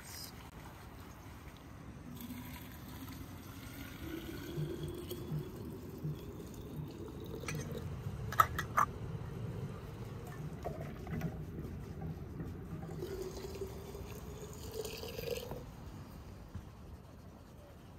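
Water poured from a ladle into a large glass jar, its pitch rising steadily as the jar fills. This happens twice, with a sharp clink in between.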